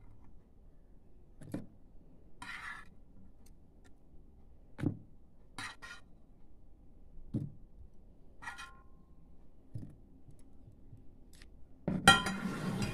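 Light, sparse clicks and taps of a metal spoon against a frying pan and a plastic bowl as fried bread gulab jamun balls are lifted into sugar syrup, a second or two apart. Near the end a louder clatter of utensils begins.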